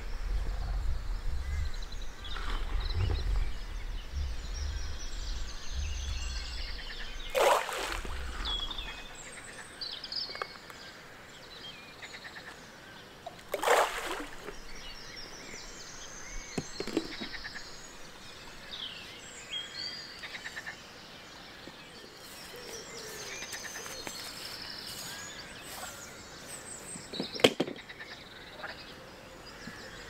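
Riverside outdoor ambience with songbirds chirping and singing throughout. A low rumble runs under the first third, and three brief louder noises stand out: one about a quarter of the way in, one near the middle and one near the end.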